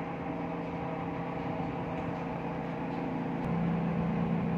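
Steady machinery hum with several constant tones, getting slightly louder about three and a half seconds in.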